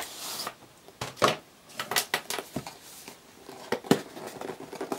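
Cardboard packaging being handled: a printed cardboard sleeve slid off a white box with a brief scraping swish, then scattered taps and clicks of the cardboard box being set down and worked open, with light rustling between them.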